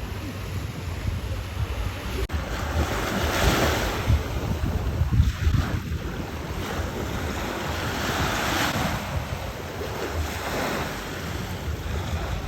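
Wind buffeting the action camera's microphone over the rush of sea water, with louder surges of water every couple of seconds.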